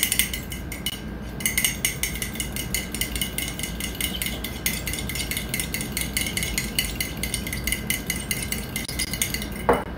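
A utensil stirring egg yolks in a ceramic mug, with fast, steady clinking and scraping against the mug's sides.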